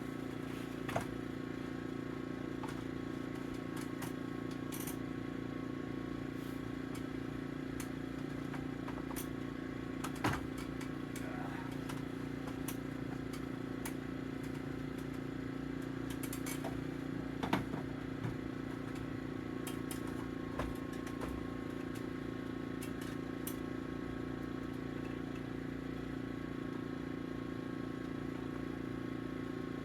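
A steady low mechanical hum, with a few short sharp knocks and clicks about ten and seventeen seconds in.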